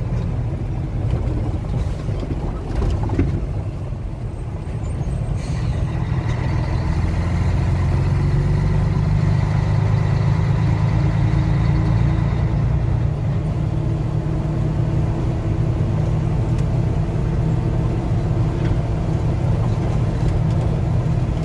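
Truck's diesel engine droning with road noise, heard inside the cab while driving on the highway. The drone grows louder a few seconds in, then holds steady.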